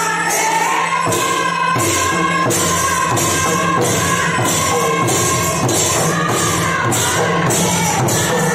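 Devotional group singing accompanied by a hand-played barrel drum and brass hand cymbals; the cymbals clash in a steady beat of about two strikes a second under the wavering voices.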